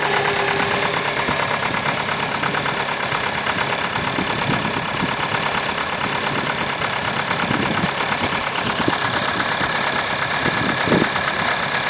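Opel C18NZ 1.8-litre eight-valve four-cylinder engine idling on a cold start with a fast, steady ticking from its valvetrain: the hydraulic lifters are knocking.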